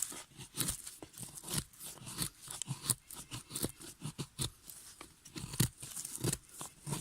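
Mora Companion knife cutting into wood, a run of irregular short crunching, scraping strokes, a few a second.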